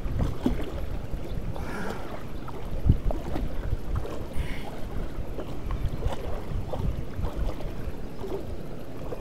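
Small waves lapping and splashing against a float tube close to the microphone, with a few low bumps, the loudest about three seconds in.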